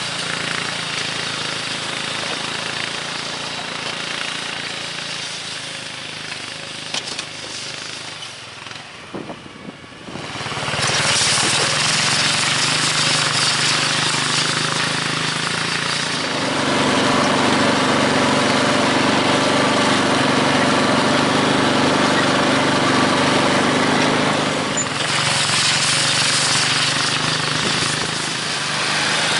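Engine of a field machine working soil, running continuously with a rattle. It drops quieter with a few clicks about eight seconds in, comes back louder about ten seconds in, and holds a strong steady drone from about sixteen seconds that eases near twenty-five seconds.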